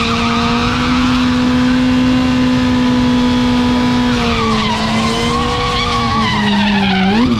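Kawasaki ZX-14 sportbike's inline-four engine held at high revs during a burnout, its rear tyre spinning and screeching on the tarmac to heat it before a drag run. The revs hold steady, sag and waver about four seconds in, then rise sharply near the end.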